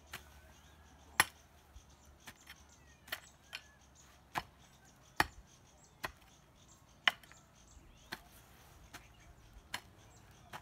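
Hoe blade striking into grassy turf and soil as the ground is dug, a sharp chop about once a second; the loudest blow comes about a second in.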